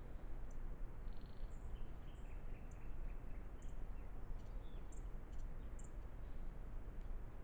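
Steady background hiss of a trail camera's microphone outdoors, with faint, short high-pitched chirps and ticks scattered through, typical of small birds calling.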